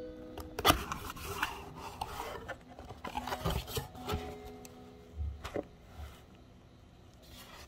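A kraft cardboard box being opened by hand: its lid flap scraping and rubbing against the cardboard, with a sharp click a little under a second in and a few lighter knocks as the lid is lifted back.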